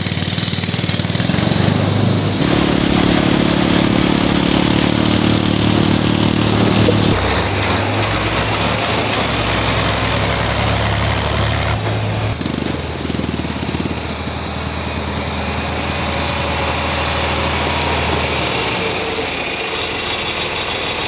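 Engines of a kid-size mini Jeep and a John Deere farm tractor with a front loader running as they drive. The steady engine hum changes pitch abruptly a few times as the shots change.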